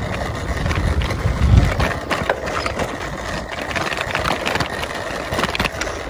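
Wind rumbling on the camera microphone over the road and rattle noise of a bicycle being ridden, with scattered clicks. The strongest gust comes about a second and a half in.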